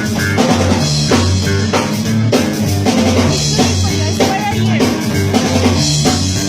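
A rock band playing an instrumental stretch of a rockabilly song, with no singing: a drum kit keeps a steady beat with snare and rimshot strikes over a walking bass line and guitar.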